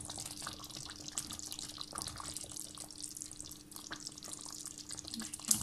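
Pot of kadhi, a yogurt curry with pakoras, cooking on a gas burner: a steady hiss with small pops and ticks as a wooden spoon stirs it. A single sharper knock comes near the end.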